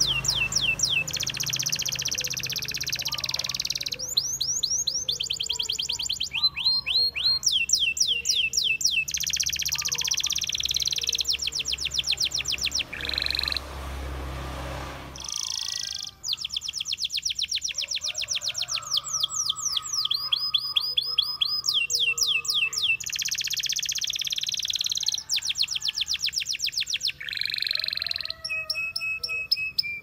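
Domestic canary singing a long, high-pitched song of rapid trills and fast runs of repeated down-slurred notes, with a short pause about halfway through.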